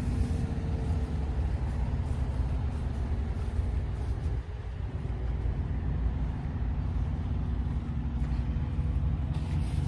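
Idling truck engine: a steady low rumble with a faint even hum.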